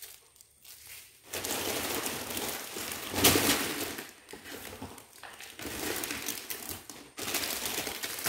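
Clear plastic bags crinkling and rustling as bagged plastic model-kit runners are handled and stacked, with the loudest crackle about three seconds in.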